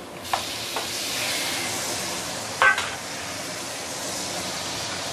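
Raw chicken pieces sizzling steadily as they go into a hot stainless-steel wok of fried onion and fermented soya bean paste. A wooden spatula and the plate knock lightly against the wok, with one sharper knock about two and a half seconds in.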